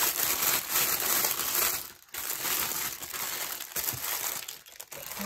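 Clear plastic bag crinkling and rustling as a fabric hat is pushed into it, nearly continuous with a brief lull about two seconds in.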